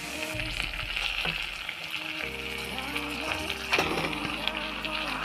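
Ground chicken and masala sizzling in hot oil in a pan, with a wooden spatula scraping and knocking now and then as the meat is stirred in.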